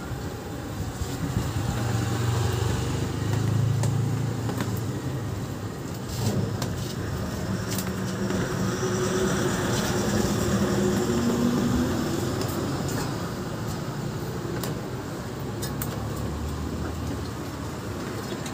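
Street traffic: passing motor vehicles, with a low engine rumble that swells a couple of seconds in and again near the end, and a few light clicks.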